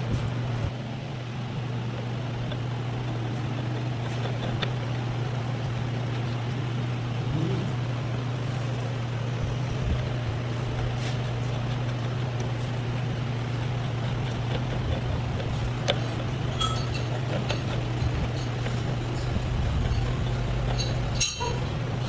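Metal lathe running with a steady low hum while a thread is being cleaned up. A few light clicks come through, and near the end there is a short rattle of metallic ticks.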